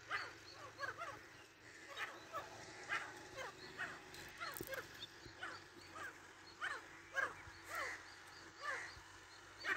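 Grey francolins giving short chirping calls, about two a second, each note sweeping up and down, in a steady irregular run.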